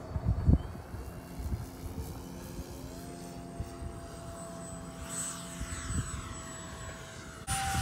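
Electric ducted fan of a Freewing F-35 RC jet whining under power as it takes off and climbs, the tone stepping up about three seconds in. Just before the end the whine jumps louder and starts falling in pitch as the jet passes.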